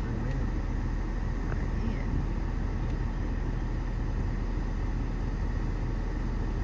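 Steady low rumble of a car or truck driving.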